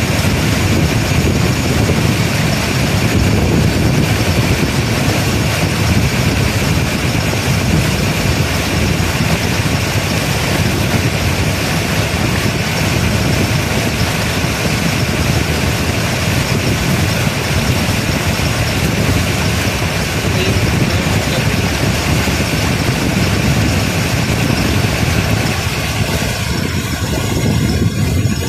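Passenger boat's motor running steadily while under way, with water rushing and splashing along the hull.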